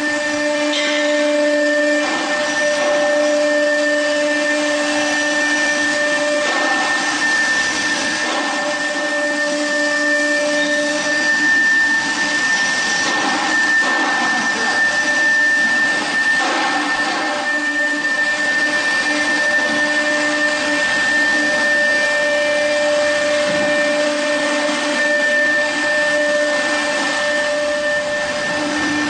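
CNC router spindle running and machining solid wood door rails: a steady whine of several tones over a rushing cutting noise that grows rougher in the middle.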